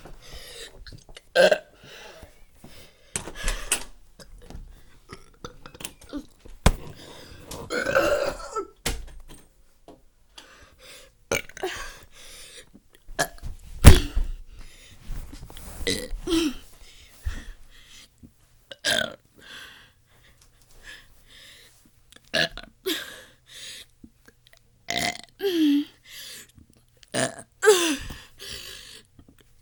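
A person burping again and again in short separate belches, several of them falling in pitch, with one longer drawn-out burp about a quarter of the way in. A sharp knock near the middle is the loudest sound.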